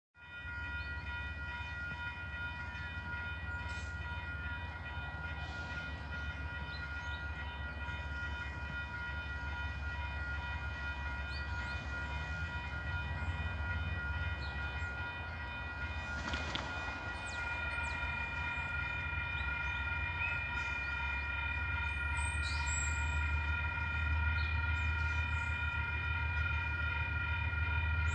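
Distant diesel locomotive of an approaching freight train, a steady low rumble with a steady whine above it, growing slightly louder toward the end.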